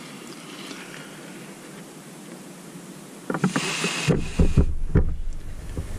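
A person blowing hard across wet acrylic pour paint to spread the white into a bloom, the breath gusting onto the microphone. The blowing starts about three seconds in, after a stretch of faint room hiss.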